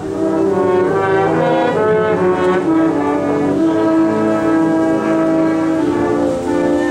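Ensemble of wind instruments playing together, several sustained notes sounding at once in a slow, chordal passage, with a higher flute line coming back in near the end.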